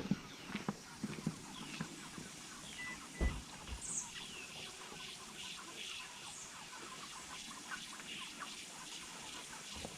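Chickens clucking and peeping, many short calls overlapping, with a few knocks in the first second.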